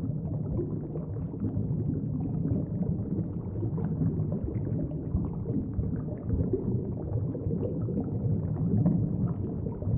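Muffled bubbling and gurgling water, a steady dull underwater sound.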